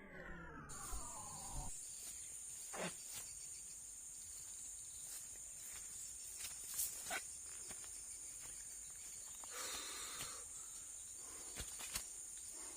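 Steady high-pitched drone of insects, crickets or cicadas, with a few faint clicks. The tail of a falling musical tone fades out in the first second and a half.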